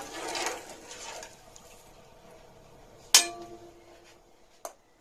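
A steel spoon scraping and stirring in a metal pan of sugar syrup for the first second or so. About three seconds in, a single sharp clang with a short metallic ring as the spoon strikes the pan, then a lighter click near the end.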